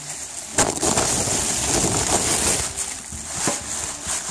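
Plastic packaging wrap crinkling and rustling as it is handled, with dense crackles from about half a second in until about three seconds, then quieter with a single sharp crackle.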